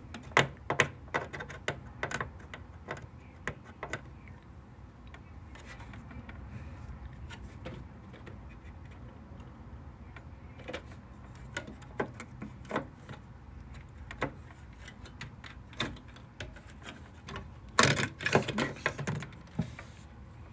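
Scattered clicks and light knocks of hands handling a DDR4 memory stick around a desktop motherboard's memory slots, with a quick run of clicks near the end.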